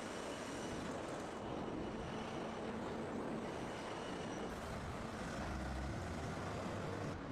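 Sawmill machinery running: a steady mechanical noise of conveyors and saws, with no distinct strokes.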